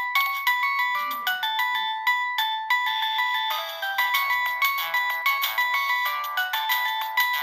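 Siemens C72 mobile phone playing one of its preloaded ringtones: a fast melody of short, quick notes with several tones sounding together, all fairly high-pitched with no bass.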